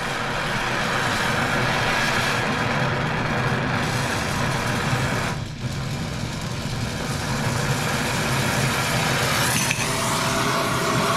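Oxyacetylene torch flame burning with a steady hiss while its flame is being adjusted. The hiss dips briefly about five seconds in and changes character near the end, as the flame is put to the copper joint.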